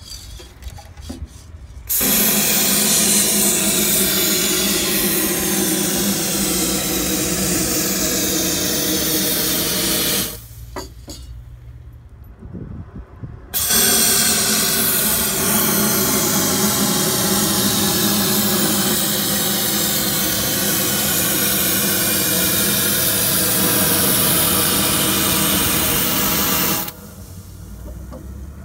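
Aerosol spray forced through an extension wand into a vehicle body cavity: a steady, loud hiss in two long sprays, the first about eight seconds and the second about thirteen, with a short pause and a few handling clicks between. The first spray is solvent cleaning the cavity and the second is the cavity coating going in.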